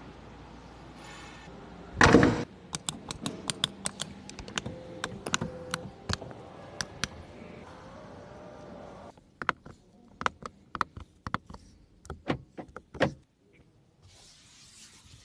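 A car door shutting with a heavy thump about two seconds in, followed by a long run of sharp clicks and taps. The background hum drops away about two-thirds of the way through, and the clicks go on more sparsely after that.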